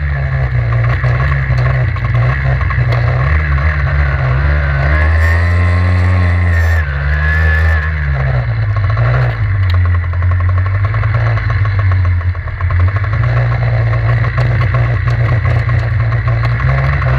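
Flandria 50 cc two-stroke trials motorcycle engine running at low speed, heard close up from the bike itself. The note rises briefly about five seconds in and drops back about two seconds later.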